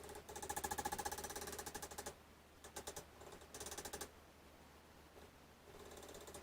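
Small nails being tapped in with a hammer, the taps sped up into rapid ticking bursts with a slight ring: a long burst in the first two seconds, then shorter ones, and another starting near the end.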